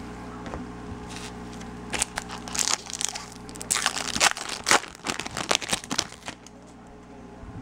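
Foil wrapper of a Bowman Chrome trading-card pack being torn open and crumpled by hand: a quick run of crinkling crackles from about two seconds in until about six seconds, quieter before and after.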